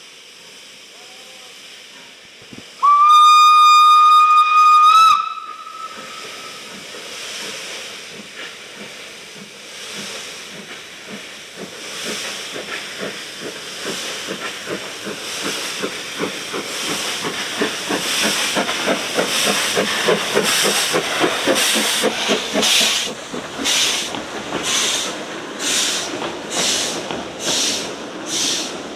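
Narrow-gauge steam tank locomotive starting a train. It gives one steady whistle about three seconds in, lasting a couple of seconds. Then hissing steam and exhaust beats build as it gets under way, the beats growing loud and distinct near the end.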